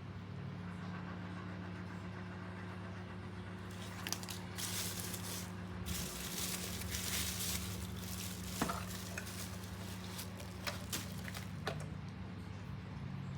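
Old radio humming steadily, with bursts of crackling static in the middle and a few sharp clicks near the end.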